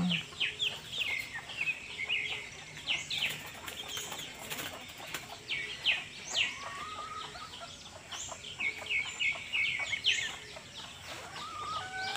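Birds perched in the trees chirping: many quick, high, falling chirps one after another, with a few faint low notes underneath.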